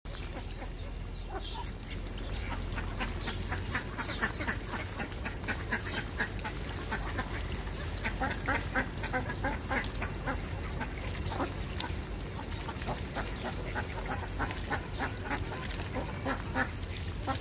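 Ducks quacking in a steady run of short, quick calls, over a low steady hum.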